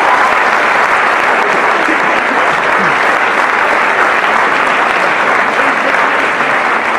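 Audience and performers applauding, steady dense clapping throughout.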